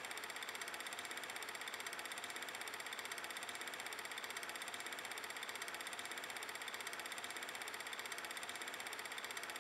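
Simulated 8mm film projector running: a steady, rapid mechanical clatter laid over the footage as a sound effect by the 8mm vintage-camera app.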